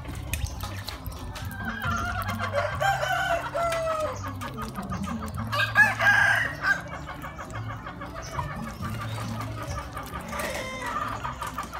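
Farmyard poultry calling: several pitched, gliding calls, the loudest about six seconds in, then quicker repeated calls in the second half, over a steady low hum.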